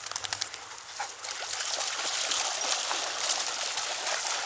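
Many dogs splashing and wading through the shallow edge of a pond. A quick patter of sharp knocks in about the first second gives way to steady splashing.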